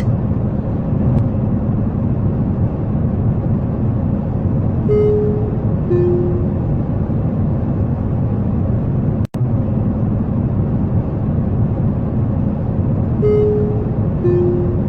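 Steady airliner cabin noise, a deep rushing rumble of engines and airflow. Twice, about eight seconds apart, a two-note chime sounds, the second note lower than the first. The sound cuts out for an instant about nine seconds in.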